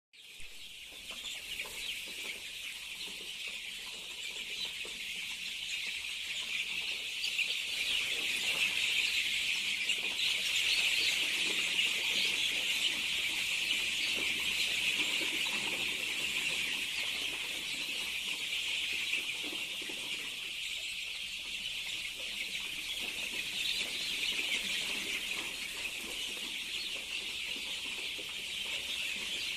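A flock of farm chickens: a dense, continuous high-pitched chorus with scattered clucking underneath, growing somewhat louder toward the middle.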